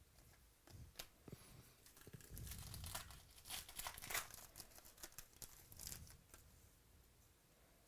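A trading-card pack wrapper being torn open and crinkled by hand, with a few light clicks of card handling.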